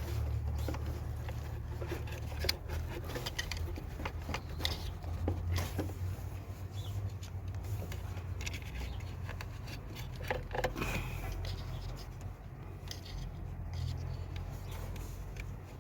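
Hand work freeing a VW Caddy engine's timing chain: scattered light metallic clicks and scrapes over a steady low hum.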